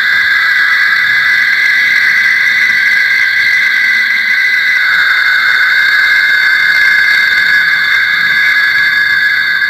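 Synthetic 'reptoid alien' voice sound effect: a loud, steady, high-pitched squealing tone that dips slightly in pitch about five seconds in.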